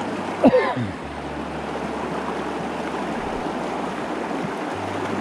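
The Virgin River rushing steadily around the hikers in the canyon. About half a second in there is one short, loud exclamation from a person's voice.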